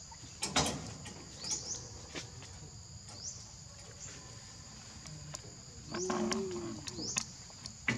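Forest ambience with a bird's short rising chirp repeated every second or so over a steady high insect hum. A sharp knock comes about half a second in, and a short wavering pitched call about six seconds in.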